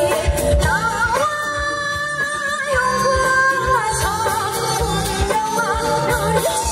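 A woman singing a Korean folk-style song into a microphone over instrumental accompaniment with a steady beat; her voice slides between notes and holds long notes about a second to four seconds in.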